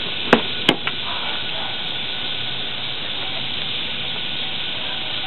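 Two sharp clacks less than half a second apart at a locked car door, followed by a steady even hiss.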